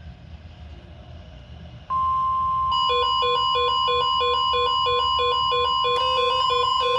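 NOAA Weather Radio's steady warning alarm tone, a single pitch near 1 kHz, starts about two seconds in and signals an incoming weather alert. From about three seconds in, a fast electronic beeping that steps between pitches several times a second plays over it.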